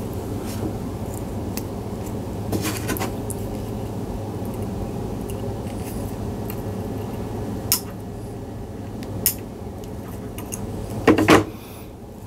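Small metallic clicks and jingles as steel lure wire, a swivel and a spinner blade are worked with needle-nose pliers, over a steady low hum that drops away about eight seconds in. The loudest click comes about a second before the end.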